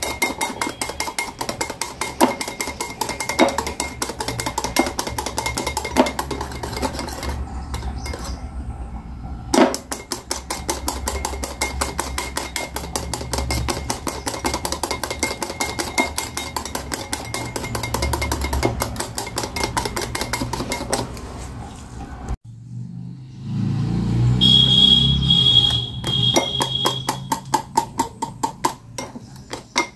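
Wire whisk beating instant coffee, sugar and water in a glass bowl, its wires clinking and scraping against the glass in rapid, even strokes as the mixture whips into a thick foam. About three-quarters through the strokes stop briefly and a duller, lower sound takes over for a few seconds before the whisking resumes.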